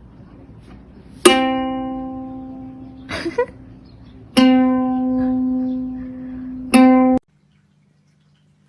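A plucked string instrument, sounding like a ukulele or guitar, is struck three times on the same low note. Each note rings and fades, with a brief scuffling noise between the first two. The sound cuts off abruptly after the third note.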